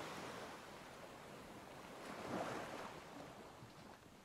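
Faint sea ambience: a steady wash of waves and wind that swells once about two seconds in.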